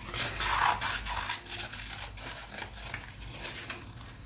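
Scissors cutting a circle out of a sheet of tempera-painted paper: a run of short snips, with the paper rustling as it is turned against the blades.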